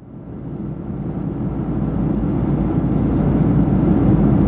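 Steady cabin noise of a Boeing 737-900 in flight: the low rumble of airflow and its two CFM56-7B engines heard from inside the passenger cabin, fading in from silence and growing louder.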